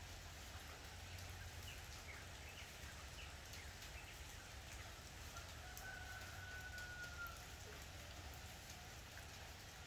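Roosters crowing faintly, with a few short calls and then one long drawn-out crow about halfway through.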